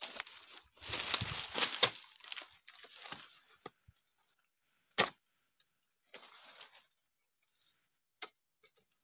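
Dry oil palm fronds and leaves rustling and crackling for the first two seconds, then scattered knocks of a long-handled steel harvesting chisel (dodo) jabbed into the base of a wedged oil palm fruit bunch, the sharpest knock about five seconds in and another near the end. The bunch is jammed between the fronds, so the chisel strikes without freeing it.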